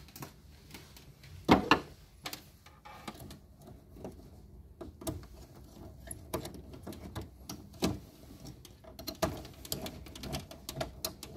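Irregular clicks, taps and light rattles of wires and plastic terminal parts being handled inside an electrical control panel while a phase wire is taken from a terminal block, with sharper knocks about a second and a half in and near eight seconds.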